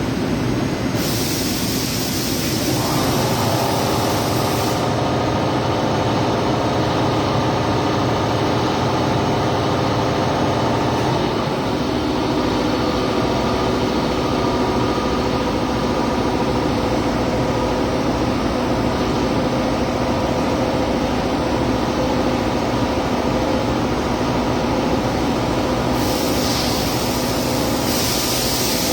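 A steady machine hum with several held tones, joined by a high hiss about a second in, which stops a few seconds later and returns near the end.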